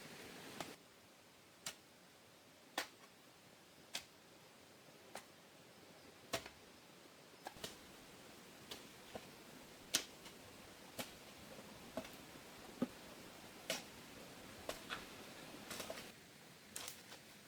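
Sharp knocks or taps repeating at about one a second, some louder than others, over a faint hiss.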